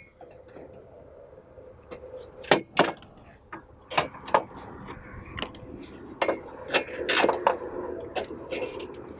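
Sharp metal clinks and taps, about a dozen at irregular intervals, several in quick pairs and some with a short ring, from tools and steel parts as a tight stock sway bar link is worked off its mounting bolt.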